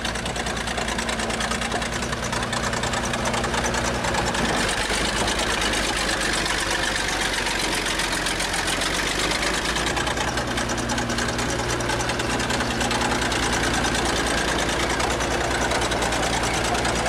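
Bulldozer engine running steadily with a fast, even clatter, its note shifting about four seconds in and again about ten seconds in.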